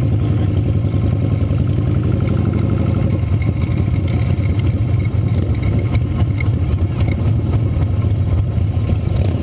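Motorcycle engine running steadily at low parade speed, picked up by a camera mounted on the bike itself, with a deep even rumble.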